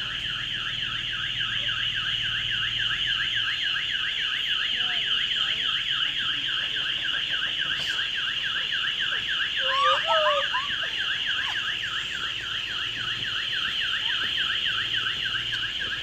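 Electronic alarm siren sounding a fast, steady warble that repeats several times a second. A short call with sliding pitch cuts in briefly about ten seconds in.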